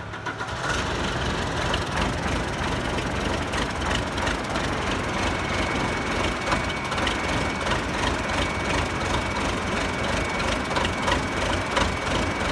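Case 480C backhoe's diesel engine, jump-started off a golf cart, catching about half a second in and then running steadily with a rough clatter. A thin steady high whine joins about five seconds in.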